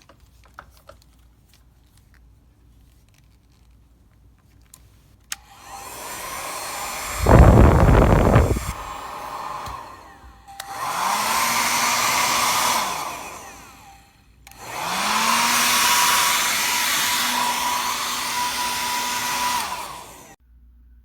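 Conair 1875 W compact travel hair dryer switched on with a click and run in three spells, a steady rush of air with a motor whine that rises as it spins up. A loud low rumble comes a couple of seconds into the first spell.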